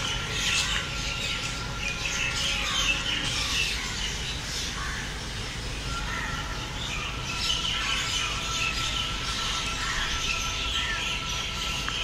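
Many wild birds chirping and calling in overlapping short calls, with a faint steady high tone underneath.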